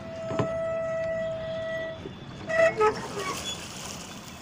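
A horn sounding one long steady note for about two seconds. A moment later come a few short, louder blasts that shift in pitch.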